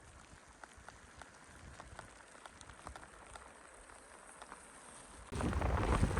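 Falling snow ticking faintly and irregularly against gear in a blizzard. About five seconds in, loud wind buffeting on the microphone cuts in suddenly.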